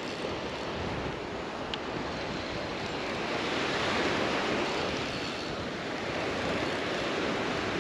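Surf breaking and washing up the beach, a steady rushing that swells a little around the middle, with wind buffeting the microphone.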